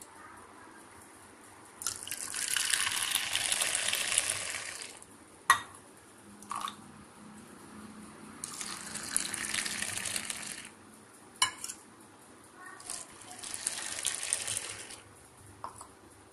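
Hot filter coffee poured three times from a stainless steel vessel into a steel tumbler, mixing and frothing it. Between pours, short metal clinks as the vessels knock together.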